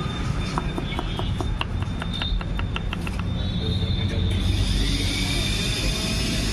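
Knife chopping onions on a board in quick, even strokes, about four a second, stopping about three seconds in; a steady hiss follows, over a constant low rumble.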